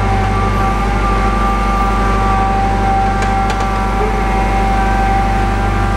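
Boart Longyear DB520 drill rig running steadily: a low engine drone with a steady high whine from its hydraulics on top. Two faint clicks come a little past halfway.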